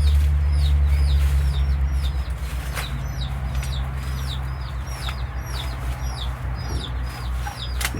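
Chickens calling: a steady run of short, high chirps, several each second, over a low rumble that eases after the first two seconds. A sharp click comes near the end.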